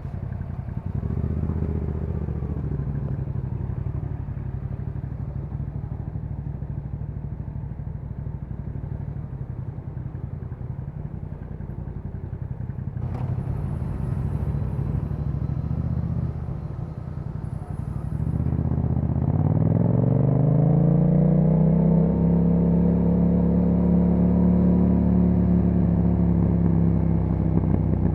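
2021 Yamaha MT-07's parallel-twin engine running through an Akrapovic exhaust, steady at low revs, with a single click about 13 seconds in. About 19 seconds in the revs rise smoothly as the bike pulls away, then hold steady at a higher engine speed.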